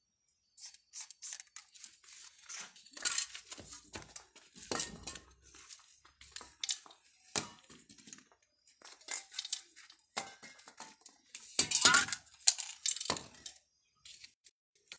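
Aerosol spray-paint cans being handled: short hisses of spray and the clink and clatter of metal cans knocking together, loudest about twelve seconds in.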